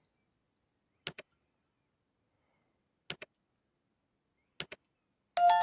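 Three short double clicks, each pair a tenth of a second apart and spaced about a second and a half to two seconds apart, on an otherwise silent track, then near the end a bright bell-like chime of several ringing tones that rings on.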